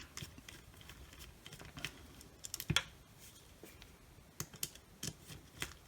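Scattered light clicks and taps of small parts being handled: wire spade connectors being worked off a cordless circular saw's trigger switch. The loudest sharp click comes a little under halfway through, and a few more come near the end.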